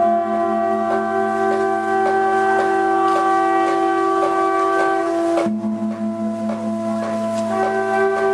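Background instrumental music: held chord tones, like a keyboard or wind pad, that shift to a new chord about five and a half seconds in and again near the end, over a light, steady tapping beat.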